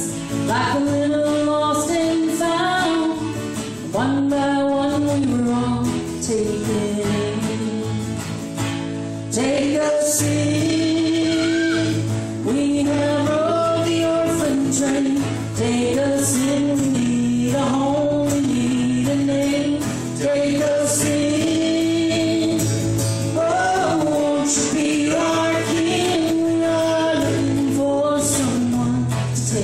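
Live acoustic folk band playing, with voices singing over the accompaniment.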